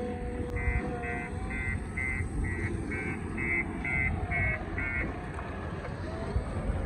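Diesel engine of a JCB 3DX backhoe loader running with a low rumble, while a reversing alarm beeps about ten times, roughly twice a second, and stops about five seconds in.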